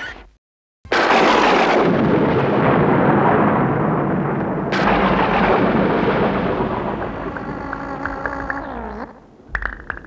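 Thunder: a sudden loud thunderclap about a second in after a moment of silence, rumbling and slowly dying away, with a second crack about five seconds in.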